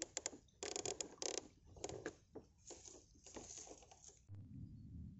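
Fish splashing and flapping at the water surface inside a raised square lift net, a quick irregular run of splashes. The splashing stops about four seconds in, leaving a low rumble.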